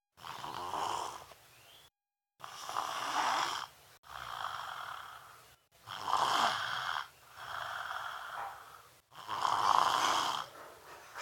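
Young child snoring heavily, like an adult: a rasping snore on each breath, about six in a row with brief silent pauses between them.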